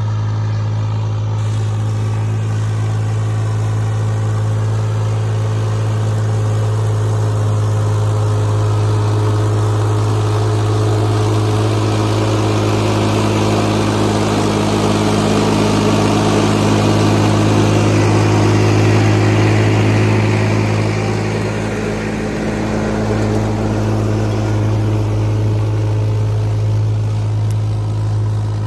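Massey Ferguson 7250 50 hp diesel tractor engine running steadily under load while pulling a 14-disc harrow through dry soil. It grows louder as the tractor comes close, peaking a little past halfway, then drops slightly as it pulls away.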